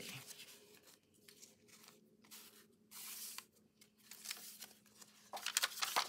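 Cardstock pages of a handmade journal rustling and sliding as they are handled and flipped: a string of short papery scrapes, loudest near the start and again near the end.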